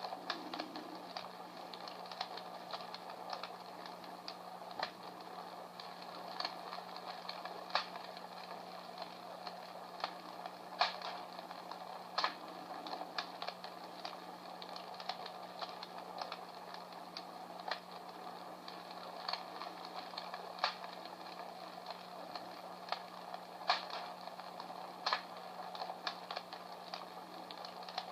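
Battery-operated Comfort Smart Fire Crackler playing its electronic wood-fire crackle: irregular sharp pops and snaps of varying loudness over a soft steady hiss, with a steady low hum underneath.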